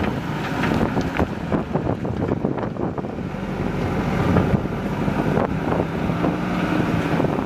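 Diesel engine of a JCB 3DX backhoe loader running steadily under work, with scattered knocks and clanks. Wind buffets the microphone.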